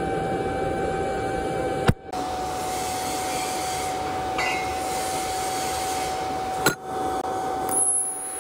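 Steady machine noise in a welding shop: an even rushing sound with a steady mid-pitched hum. It is cut by two sharp clicks, one about two seconds in and one near seven seconds. A thin high whine starts near the end.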